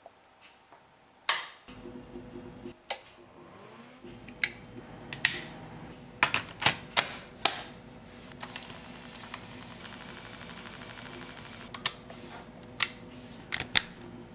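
A dozen or so sharp mechanical clicks at irregular spacing, bunched in the middle and again near the end, from switches, buttons and a cable plug being worked on bench electronics and a portable cassette recorder. A faint steady electrical hum sets in about two seconds in.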